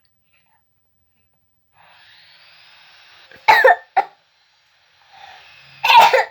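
A child coughing hard: a drawn-in breath, then two sharp coughs about three and a half seconds in, then another breath and a longer cough near the end.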